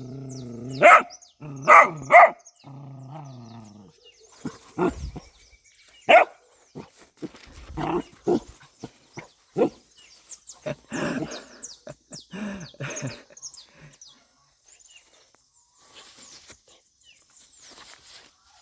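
A dog barking in short, irregular barks while playing, with two low, drawn-out growls in the first few seconds. The barks thin out and fade toward the end.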